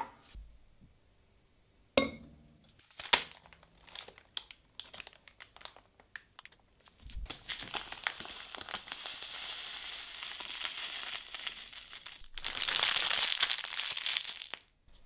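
A glass mug is set down with a few sharp knocks, then a packet of dried yerba mate rustles and crinkles as the leaves pour into the glass with a steady hiss. Near the end the empty packet is crumpled in a hand, the loudest part.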